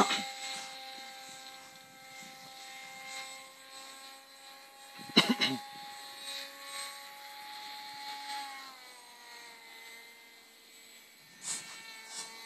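Electric motor and propeller of a radio-controlled model airplane whining steadily overhead, dropping in pitch about two-thirds of the way through as the throttle is eased back. A few short bumps on the microphone, the loudest about five seconds in.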